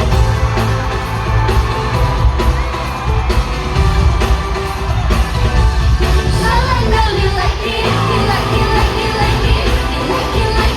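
Live K-pop concert: a pop song with singing over a heavy bass beat, and the crowd yelling and cheering along.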